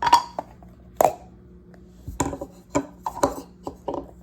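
Slime-kit packs and a plastic container being handled and set down: a string of sharp knocks and small clatters, about one every second or less, the first two the loudest.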